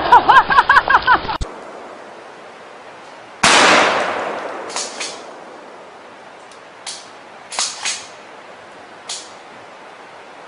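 A single gunshot from a long gun cracks out about three seconds in and rings away over a second or so. Several fainter sharp cracks follow over the next few seconds.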